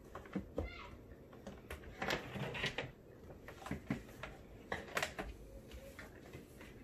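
Handling sounds of a laptop and a magnetic clip-on portable monitor being fitted to the back of its lid: a string of sharp plastic clicks and knocks, with a short wavering squeak about half a second in.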